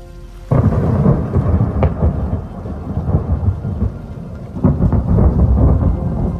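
Thunder cracks suddenly about half a second in and rumbles on, easing off, then a second loud peal breaks about four and a half seconds in, over steady rain.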